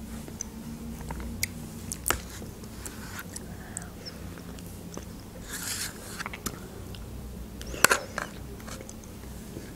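Close-up mouth sounds of eating thick yogurt off a metal teaspoon: wet lip smacks and scattered sharp clicks of the spoon against teeth and the plastic yogurt cup. The loudest click comes near the end.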